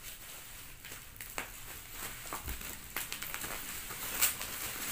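Plastic packaging and bubble wrap crinkling and rustling as parcels are cut open and unwrapped by hand, with scattered sharp crackles. The loudest crackle comes about four seconds in.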